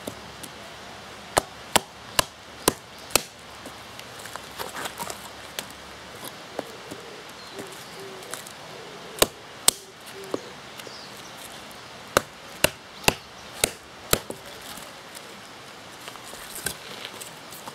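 Hand hatchet chopping into small pieces of wood on a chopping stump to split kindling: sharp knocks in short runs of about two a second, with pauses between the runs.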